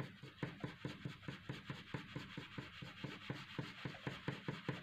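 Graphite pencil scratching on paper in quick, even back-and-forth shading strokes, about five a second, filling in a drawing's hair.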